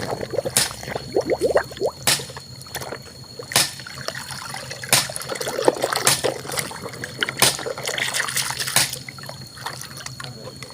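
Water trickling and splashing as soapy, muddy toy trucks are rinsed clean, with a sharp splash about every second and a half.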